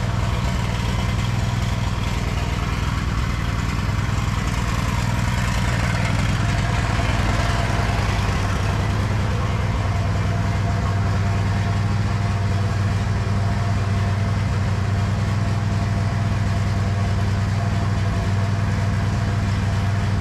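John Deere riding lawn mower engine idling steadily.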